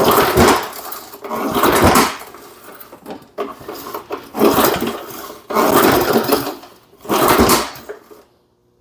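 3.5 hp Briggs & Stratton engine on a 1979 Rocket push mower being cranked over about five times in short strokes, not yet catching, during a first start attempt after about 20 years idle with starting fluid in it.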